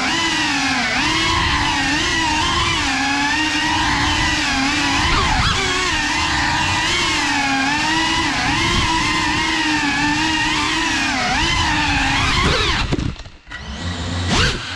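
GEPRC CineWhoop FPV quadcopter's motors and ducted propellers whining, the pitch rising and falling with the throttle, heard from the drone's onboard camera. About 13 seconds in, the throttle is cut and the whine nearly stops for under a second, then it is punched back up in a quick rising whine.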